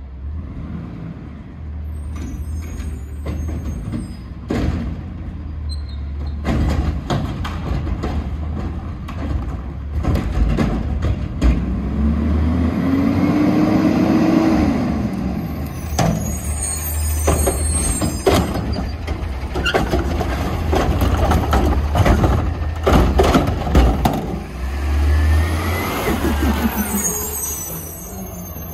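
Autocar ACX garbage truck working along the curb with its diesel engine running. The engine revs up and back down about halfway through, short air-brake hisses come at several points, and there are scattered knocks and clanks.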